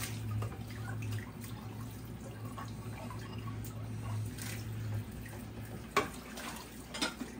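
Kitchen tap running into a stainless steel sink as dishes are rinsed, with a low steady hum that stops about five seconds in. A couple of sharp dish clinks near the end.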